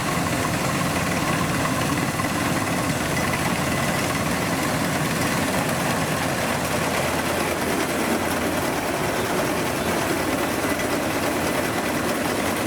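Kubota DC-93G combine harvester's diesel engine running steadily while it cuts rice, with a faint steady high tone over the engine noise.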